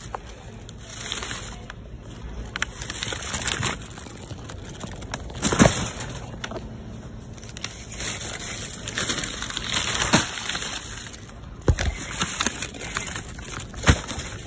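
Plastic shrink-wrap on cases of bottled water crinkling and crackling as they are handled, with a few sharp knocks.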